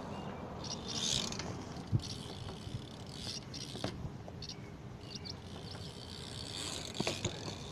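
BMX bike rolling on concrete, its rear hub ratcheting in short buzzing spells as it coasts, with a few sharp knocks from the bike.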